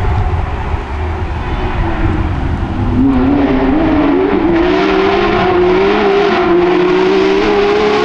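Rally car engine approaching at speed. A low rumble is joined about three seconds in by a strong engine note that climbs slowly in pitch with small wavers as the car nears.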